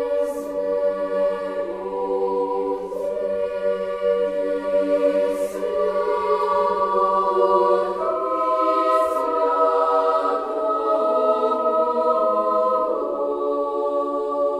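Unaccompanied choir singing slow, held chords that shift every few seconds.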